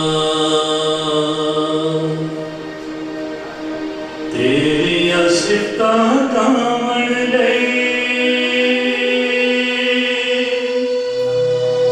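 A man singing into a handheld microphone, holding long drawn-out notes. His voice drops quieter for a couple of seconds, then comes back strong about four seconds in.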